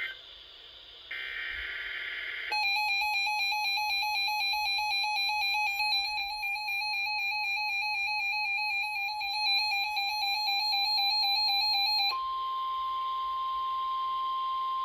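NOAA Weather Radio test signal and the receivers' alarms. A short screeching burst of the digital SAME header ends about two seconds in. Then a weather radio's alert alarm sounds as a fast, shrill warbling beep for about ten seconds. Near the end it gives way to the steady 1050 Hz warning alarm tone, which holds.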